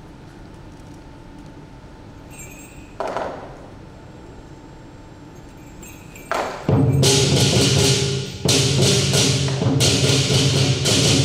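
Quiet hall background with a single ringing strike about three seconds in. Past halfway the lion dance band's drum, gong and cymbals start up loudly in a dense, rapid beat, breaking off once for a moment.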